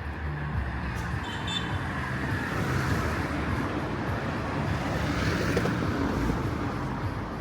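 Street traffic noise: a motor vehicle running past, its noise swelling in the middle of the stretch.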